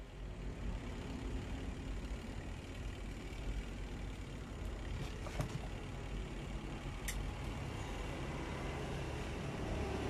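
Steady low background rumble, with a few light clicks and taps from wires being handled and connected at a toggle switch, about five seconds in and again a couple of seconds later.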